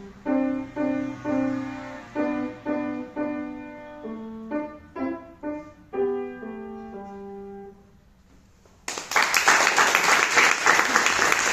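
Grand piano played solo: a run of separate chords, the last one ringing out and fading away. After a short pause, about nine seconds in, applause starts and is the loudest sound.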